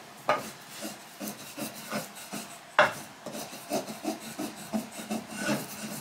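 Roasted sesame seeds being ground in a suribachi with a wooden pestle: quick repeated gritty scraping strokes, about three a second, with a sharper knock about three seconds in.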